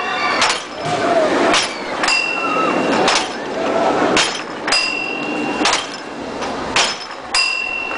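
Repeated sledgehammer blows on a carnival high striker, each sending the puck up to ring the bell at the top: three bell rings about two and a half seconds apart, each a sustained metallic ring, with sharp knocks of the strikes and the puck between them.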